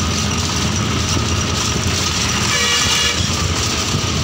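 Steady engine and road rumble heard from inside a moving vehicle. About two and a half seconds in, a vehicle horn toots once, briefly.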